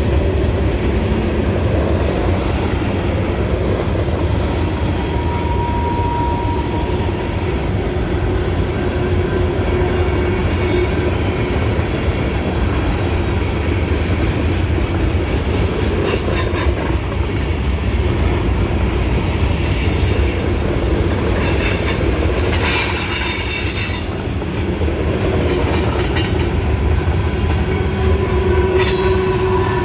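Freight cars of a mixed freight train rolling past with a steady heavy rumble of wheels on rail, clicking over the rail joints. Short high-pitched wheel squeals come in a few times.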